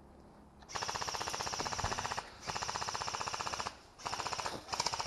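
Airsoft electric rifle firing four rapid full-auto bursts, the first about a second and a half long, the last two close together.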